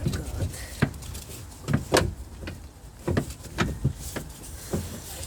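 Irregular knocks and clunks of metal parts and tools being handled during work on a car's steering rack, about six in five seconds, the loudest about two seconds in, over a low steady hum.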